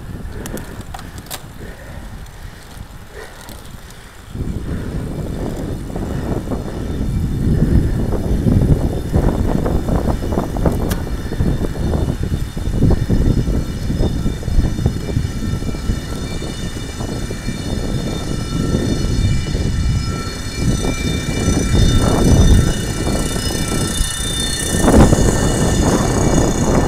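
Wind buffeting the microphone of a camera mounted on a road bike's handlebars while riding. It jumps louder about four seconds in and stays gusty, rising and falling unevenly.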